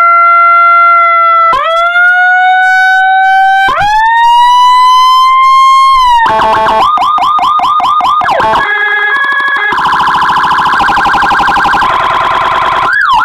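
Electronic police siren module sounding through a TOA horn speaker and switching between tones. A held tone glides upward in two steps, then comes a fast yelp of about three sweeps a second. After that come a stepped two-tone pattern, a rapid warble, and a slower yelp near the end.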